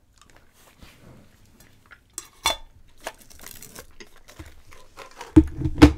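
Hard fruit drops clinking and rattling in a small metal candy tin as it is handled, with scattered small clicks, one sharper click about two and a half seconds in and a few louder knocks near the end.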